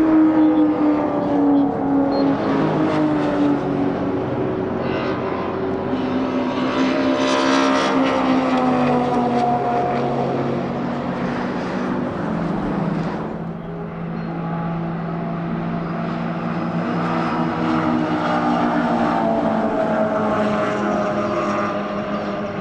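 Classic racing car engines passing at speed, several one after another, their pitch rising and falling with revs and gear changes.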